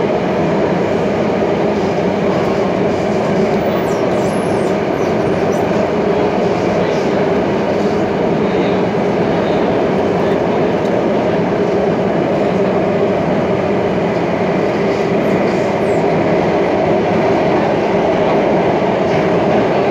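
Interior running noise of an SBS Transit C751C (Alstom Metropolis) metro train on Singapore's underground North East Line, travelling at steady speed: a continuous, even rumble of wheels and motors heard from inside the car.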